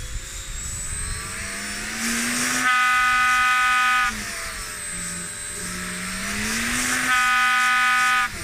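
Electric motor and propeller of an Ikura GPS RC glider run up on the ground. The pitch climbs to a steady high whine at full throttle, held about a second and a half, drops back, then climbs to full throttle again and drops off just before the end.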